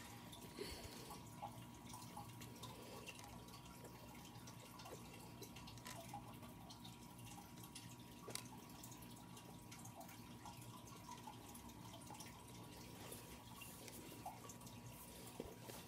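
Faint, scattered light clicks of plastic perler beads being set onto a clear plastic pegboard, over quiet room tone with a steady faint hum.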